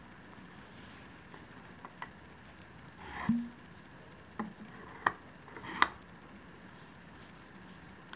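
Light handling clicks and rubbing from a Lunt 40mm solar telescope's helical focuser being turned by hand, a handful of short, sharp ticks spread over several seconds, the sharpest about five and six seconds in.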